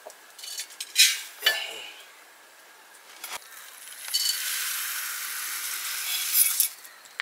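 A steel bowl scraping and clinking as it scoops dry rice from a sack, loudest twice about a second in. Then dry rice grains pour from the bowl into a metal cooking pot, a steady hiss that lasts about two and a half seconds and stops abruptly near the end.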